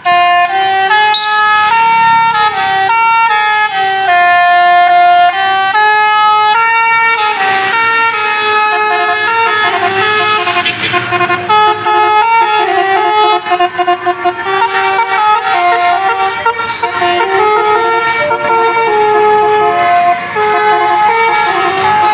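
A tour bus's Basuri telolet musical horn playing a tune: a melody of held notes stepping up and down, sounded in two parallel voices. It is loud and continuous throughout.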